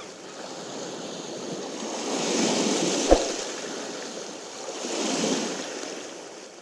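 Ocean waves washing in, two slow swells that rise and fade, with a single sharp click about three seconds in.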